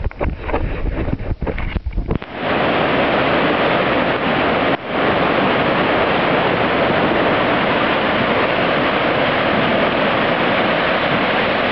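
Rough buffeting on the microphone for about the first two seconds. Then the steady, loud rushing of a river in flood, its fast, muddy water churning high in its banks. There is one brief dropout about five seconds in.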